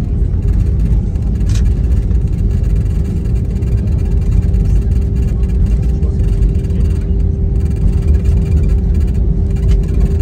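Airbus A320 cabin noise on the landing roll: a loud, steady low rumble of the engines and wheels on the runway, with a steady hum, as the airliner slows with its spoilers raised.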